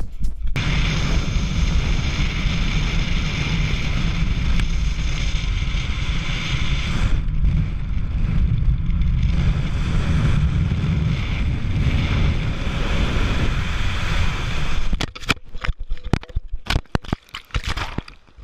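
Wind buffeting an action camera's microphone during a fast speedflying descent, a loud, steady rush heaviest in the bass. About fifteen seconds in it breaks up into irregular crackles and knocks.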